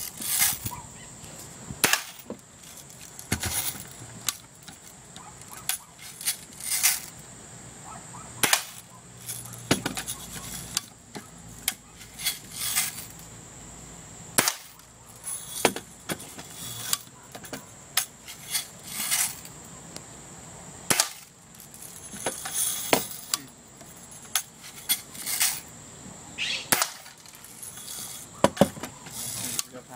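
BB gun firing again and again, each shot a sharp crack, about one a second at uneven intervals, some with a brief ringing after them as BBs strike a can.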